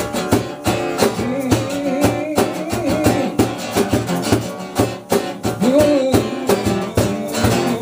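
Live band playing the instrumental opening of a song: strummed acoustic guitar over a steady beat, with a pitched lead line that bends up and down.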